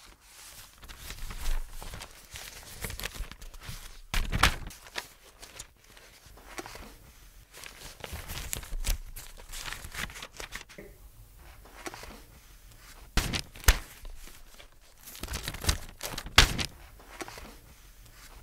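Footsteps and paper rustling and crinkling as things are handled on a paper-covered table, broken by a few sharp knocks.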